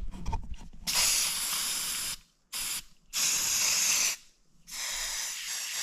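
Two aerosol spray paint cans sprayed together in four hissing bursts, the second one short.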